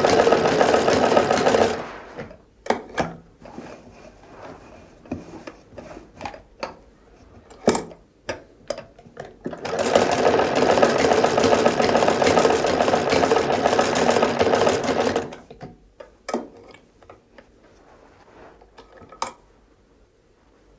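Hand-operated sewing machine running in two short runs of stitching, the first stopping about two seconds in and the second lasting about five seconds in the middle, with scattered clicks and knocks between and after them.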